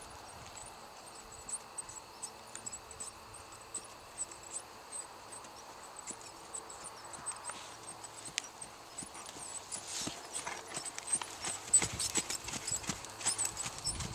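Hoofbeats of a Percheron Paint gelding on a dirt arena, a steady rhythm of soft knocks that grows louder near the end as the horse comes close.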